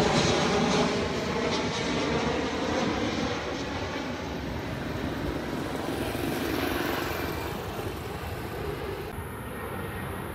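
Airbus A321 jet airliner passing low overhead on approach, its engines' roar and whine slowly fading as it moves away. About nine seconds in the sound changes abruptly to a fainter, steady jet noise from another, more distant airliner.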